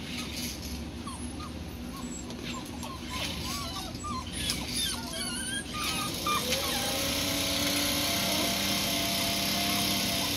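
Rhodesian Ridgeback puppies whimpering and yipping with short, rising and falling cries. About six seconds in, a motor-driven machine starts up, its whine rising and then holding steady with a rushing hiss, louder than the puppies.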